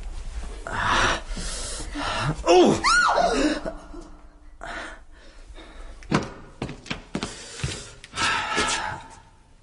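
A woman's startled cry of "Oh!", rising then falling in pitch, among radio-drama sound effects of scuffs and a series of short knocks, like steps being taken on the way down into a cellar.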